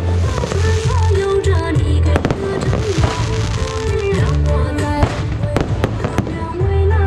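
Aerial fireworks shells bursting overhead in sharp, scattered bangs, several in quick succession about five seconds in. Loud music with a heavy bass plays over them.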